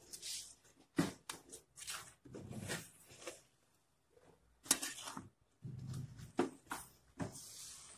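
Ladle stirring cooked biryani rice in a metal pot: irregular scrapes and clinks of the utensil against the pot, with soft squishing of the rice. The loudest clink comes a little under five seconds in.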